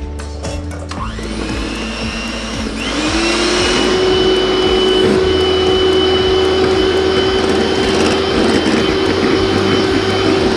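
A small electric motor appliance starts about a second in, speeds up with a rising whine, then runs steadily with a high whine over its hum.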